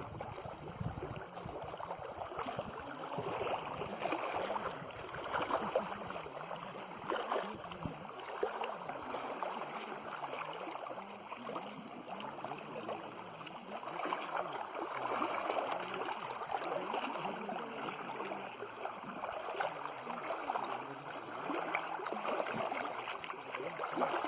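Lake water lapping and sloshing: an uneven wash of water noise that swells and eases, with small splashes throughout.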